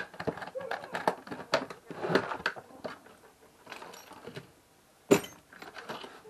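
Metal hand tools clinking and knocking as they are handled, in irregular clicks, with one sharp knock about five seconds in.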